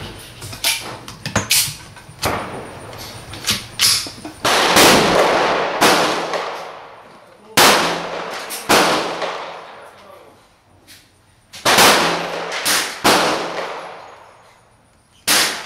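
Irregular gunshots from neighbouring lanes of an indoor shooting range, about seven loud cracks each ringing out in a long echoing tail, with fainter shots and clicks between.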